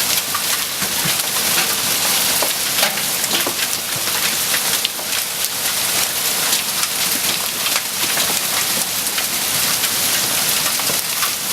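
Hailstones up to about golf-ball size pelting the ground with mixed rain: a dense steady patter, dotted with many sharp individual cracks and clicks as the larger stones hit.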